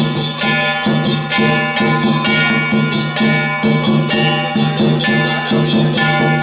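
Taiwanese temple-festival percussion music: strokes in a fast, even rhythm, about three or four a second, each ringing on, over steady held notes.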